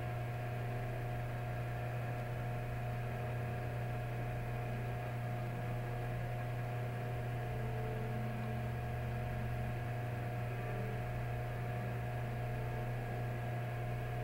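Steady low machine hum, with fainter steady tones above it, unchanging throughout.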